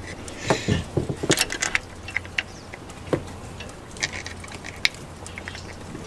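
Scattered light clicks and knocks of hand tools and parts being handled in a truck's engine bay, over a low steady hum.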